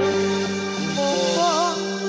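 Live Javanese gamelan music accompanying a jathilan horse dance: many held tones ringing together, with a wavering melodic line rising and falling over them about one and a half seconds in.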